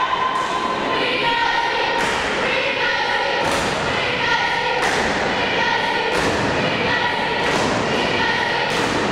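A crowd chanting in unison in a sports hall, with a regular beat of thumps about every second and a half.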